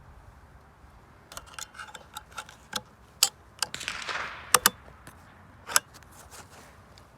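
A run of about a dozen sharp, irregular clicks and knocks, with a short rustling noise about four seconds in.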